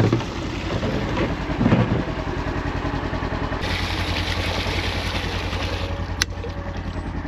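Farm tractor engine running steadily, with a hiss for a couple of seconds midway and a single sharp click near the end.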